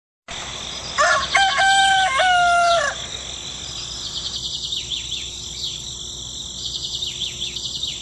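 A rooster crows once, one long cock-a-doodle-doo of about two seconds. Small birds then chirp rapidly and continuously over a steady high background.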